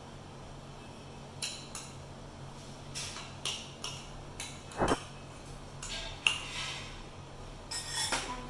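A metal spoon scraping and tapping against a small bowl as chopped onion is spooned out into a glass mixing bowl: scattered clinks and scrapes starting about a second and a half in, with a dull knock near the middle and a sharp click soon after.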